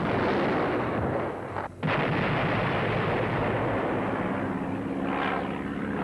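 A heavy, rumbling bomb blast, cut off sharply just before two seconds in, followed by the steady drone of a propeller aircraft's engine.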